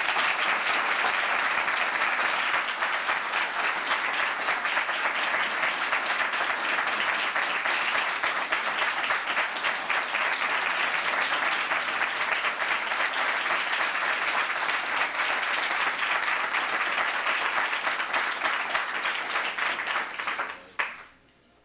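Audience applauding steadily, then stopping fairly suddenly near the end.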